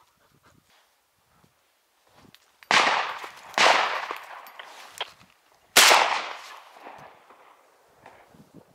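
Three shotgun shots fired at passing wood pigeons: two about a second apart, a few seconds in, then a third about two seconds later, each trailing off in a long echo.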